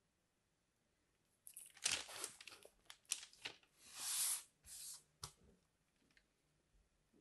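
Kinetic sand crunching and rustling as it is crumbled and scraped by hand and craft knife on the mat: a run of short scrapes starting about a second and a half in, with one longer hiss near the middle and a sharp click near the end of the run.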